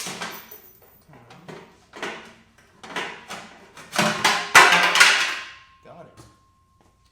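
A string of knocks, scrapes and clatters from handling tools and cart parts, busiest and loudest about four to five seconds in with one sharp click, then going quiet.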